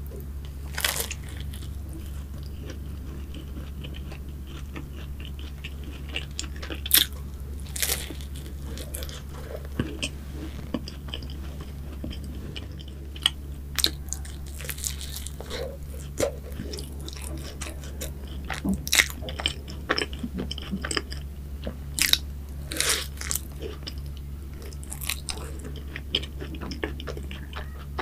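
Close-miked biting and chewing of a chocolate cookie choux puff, its crisp cookie crust crackling in irregular crunches throughout, with bigger bites about a second in, around seven to eight seconds, and again near twenty-two seconds. A steady low hum sits underneath.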